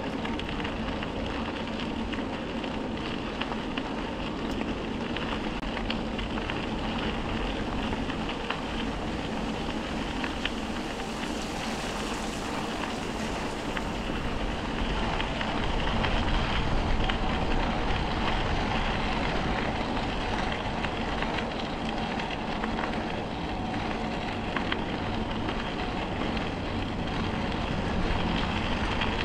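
Steady wind rush on the microphone with the rolling tyre noise of a bicycle on a trail surface, dotted with small clicks and rattles. It gets a little louder about halfway through.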